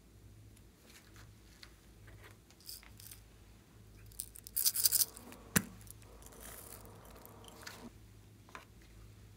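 Small plastic slime containers handled over a glass bowl: faint scattered taps, a burst of crinkling handling noise about four and a half seconds in, then a single sharp click, followed by a softer rustle that dies away near the end.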